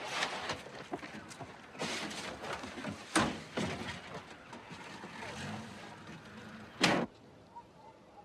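Car doors slamming shut, with a couple of sharp knocks about three seconds in, then the car's engine running low, and a loud short burst near the end.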